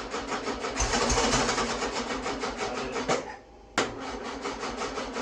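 Air-cooled VW 1641cc flat-four being turned over on the starter, a fast even chugging of compression strokes, in two bursts with a short pause about three seconds in. It is cranking without catching, starved of fuel by a fuel pump that is thought not to be working.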